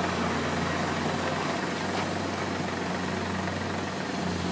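Terex RH120-E hydraulic mining shovel's engines running steadily while the machine works and swings, a constant low hum.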